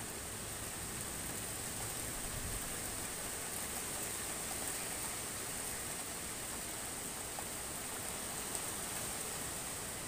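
Light rain falling on roofs: a steady, even hiss with faint scattered drop ticks.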